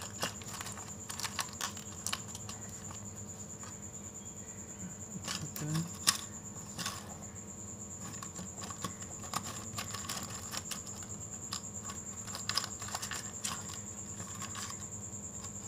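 Irregular light clicks and taps of small parts and tools being handled on a workbench, the sharpest about six seconds in. Under them runs a steady high-pitched cricket trill and a faint low electrical hum.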